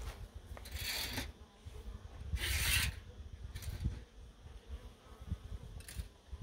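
Honeybees buzzing around open hives, with two short noisy bursts about a second and a half apart, the second louder.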